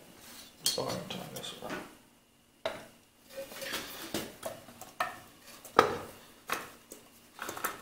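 Metal clanks and knocks as a dismantled Clinton small-engine block is handled on a workbench, with a short pause about two seconds in, then a series of separate knocks at a slow, fairly even pace.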